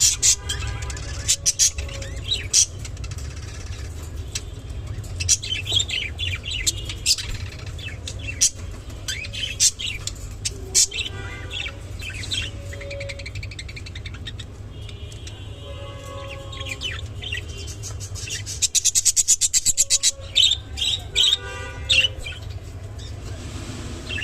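Budgerigars chirping and chattering, with sharp high chirps throughout and a fast run of clicking calls about two-thirds of the way through, over a steady low hum.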